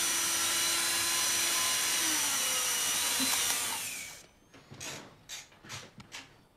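Cordless power drill running steadily, shifting pitch a little past two seconds, then winding down with a falling whine near four seconds. About five sharp clicks or knocks follow.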